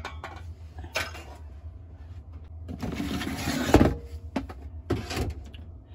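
Kitchen items being handled and moved off a counter, including a stainless gooseneck kettle lifted off a butane stove. A few brief shuffles and knocks come and go, with a longer rustle about three seconds in that ends in a sharp clunk.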